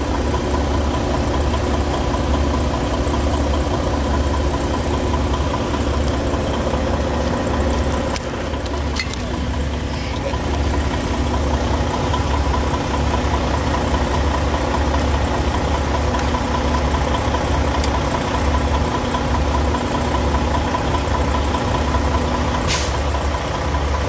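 Diesel truck engine idling steadily: a deep, evenly pulsing rumble with a constant hum above it. Near the end one of the hum tones cuts off with a brief click.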